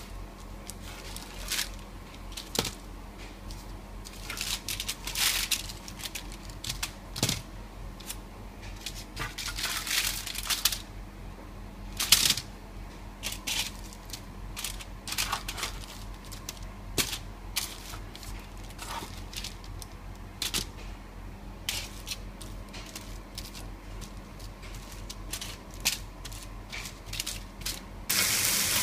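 Metal spatula scraping and clicking against a foil-lined baking tray of roasted sweet potato wedges, with the foil crinkling, in irregular bursts over a low steady hum. Near the end it gives way suddenly to the steady sizzle of food frying in a pan.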